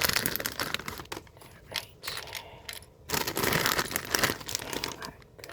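Small plastic Lego pieces clattering and clicking against one another as they are sorted by hand, with a stretch of rustling a little past halfway.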